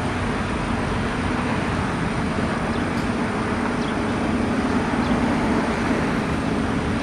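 Steady road traffic noise, a continuous wash of passing vehicles without distinct events.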